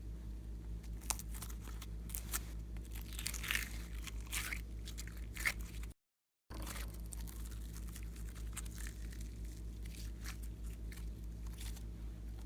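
Slime being worked by hand, with scattered crunching and crackling over a steady low hum. The sound cuts out completely for a moment about six seconds in.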